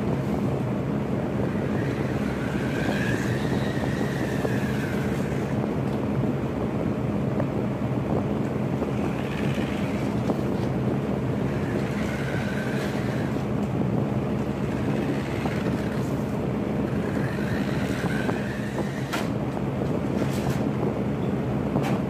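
Steady hum and rush of an electric fan, loud enough to mask speech, with a remote-control car's electric motor whining up and then down in pitch about five times as it is driven.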